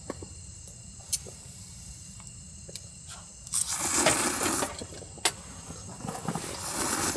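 Ramen noodles being slurped: one loud slurp a little past halfway and more slurping near the end. A couple of sharp clicks sound earlier, over a low steady hum.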